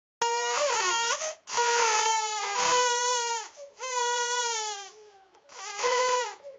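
A young child bawling: about five loud, high wailing cries of a second or so each, with short breaks between them, starting suddenly out of silence; several sag in pitch at their ends.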